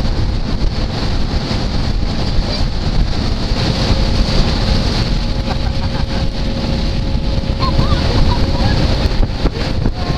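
Wind buffeting the microphone and water rushing under a towed tube, over a faint steady drone from the outboard motor of the towing boat.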